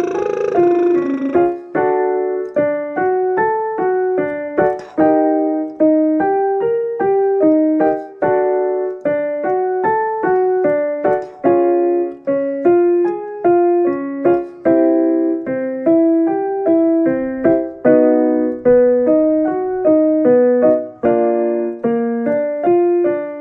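Piano playing short stepwise scale patterns, one note after another, as the accompaniment to lip-trill warm-up exercises. A brief buzzing sound, a lip trill, is heard in the first second or so.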